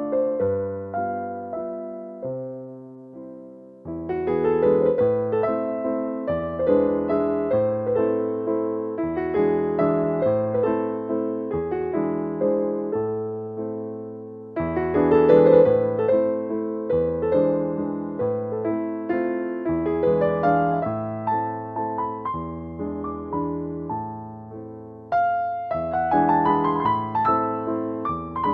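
Background piano music: a slow, gentle melody of struck notes that fade away, with phrases swelling back up about four, fourteen and twenty-five seconds in.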